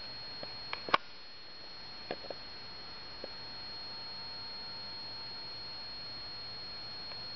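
Quiet room tone with a steady thin high-pitched whine and a faint low hum, broken by a few small clicks, the sharpest about a second in.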